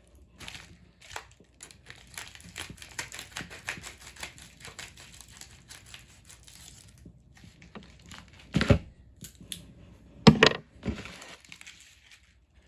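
A mailed package being torn open by hand: continuous crinkling and tearing of the packaging, with two louder knocks from handling it about two-thirds of the way through.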